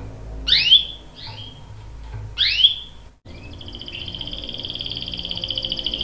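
Domestic canary singing: two loud rising whistled 'cuit' calls, then, after a brief break about three seconds in, a long, steady, rapid trill (the canary's roll).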